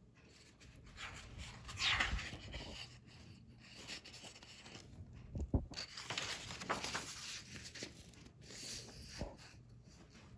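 Pages of a picture book rustling and rubbing as the book is handled and a page is turned, in short spells, with a few soft knocks.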